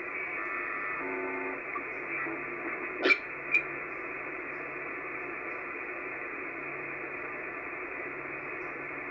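Icom IC-705 transceiver's speaker giving steady receiver hiss and band noise as the dial is tuned across the 10-meter band. Brief faint tones come through about a second in, and two short clicks follow around three seconds in.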